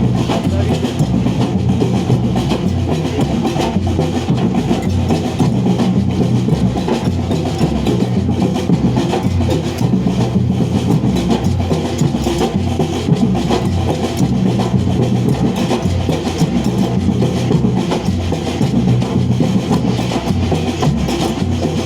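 Street drummers playing percussion together in a dense, continuous rhythm, with deep bass-drum beats under the pattern.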